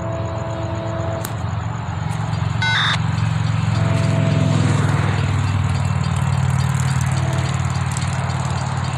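Diesel freight locomotives approaching, their engines rumbling steadily and growing louder. The locomotive horn sounds in separate blasts: a long one at the start, another about four seconds in and a short one about seven seconds in, fitting the long-long-short-long grade-crossing signal. A brief high chirp comes about three seconds in.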